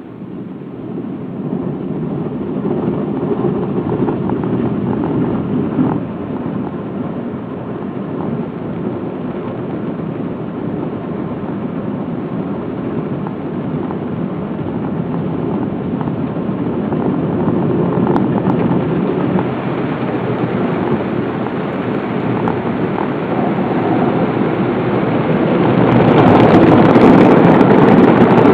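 Automatic car wash machine running, making a steady rushing noise that starts up at the beginning and gets louder near the end.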